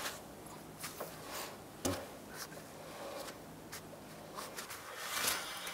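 Faint rubbing and a few light clicks as a raised truck's front wheel and tyre are turned by hand, with the firmest dull knock about two seconds in; the front brakes are the ones suspected of dragging.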